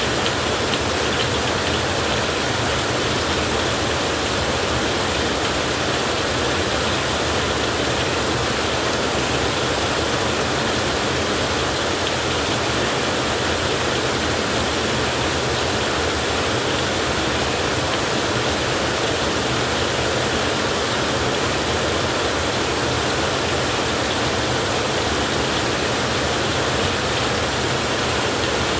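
Heavy rain falling in a steady, even hiss, unchanging throughout.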